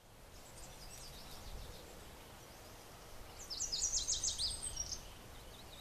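Birds singing: quick high chirps and falling trills, a few about half a second in and a louder run from about three and a half to five seconds in, over faint outdoor background noise.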